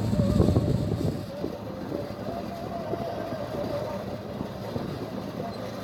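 Tractor-driven harvesting machinery running steadily: a low engine drone with a wavering whine over it.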